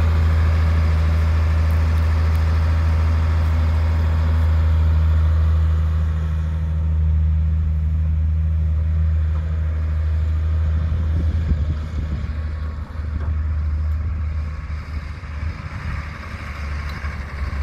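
Dump truck engine running with a steady low hum as the truck drives off, then growing rougher and fainter in the last few seconds as it pulls away.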